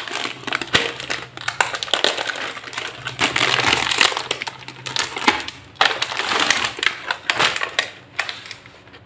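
Foil-lined plastic biscuit wrapper crackling and crinkling as it is torn open by hand and pulled away from the biscuit tray, dying down near the end.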